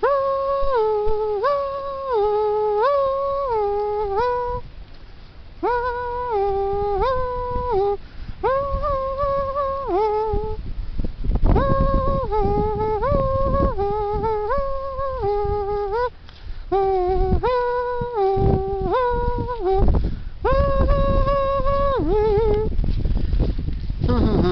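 A person humming a simple tune of held notes that alternate between a higher and a lower pitch in short phrases, with brief pauses. Low wind rumble on the microphone runs beneath, heavier in the second half.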